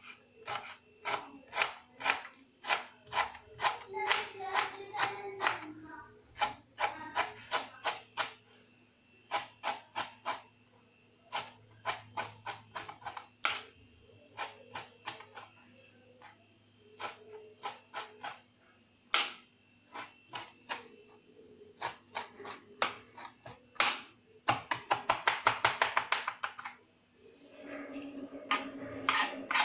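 Kitchen knife chopping fresh fennel fronds on a cutting board: runs of quick, sharp taps broken by short pauses. Near the end comes a faster, denser flurry of strokes.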